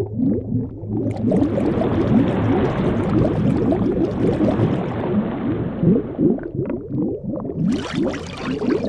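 Bubbling, gurgling liquid sound effect: a dense, steady stream of small rising bubble blips, with a faint hiss coming in near the end.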